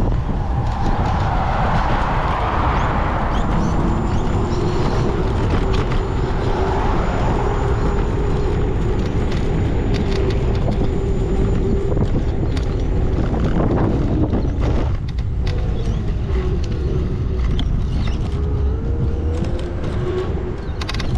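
Wind buffeting the microphone over road rumble while riding, with a steady hum that climbs in pitch about thirteen seconds in and stops a second or two later.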